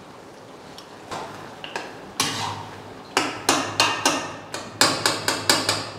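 A metal ladle and spatula knocking and scraping inside a karahi as soft tomatoes are mashed into stewing beef. The sharp clinks come in a run of about three a second from about two seconds in, over a low steady hum.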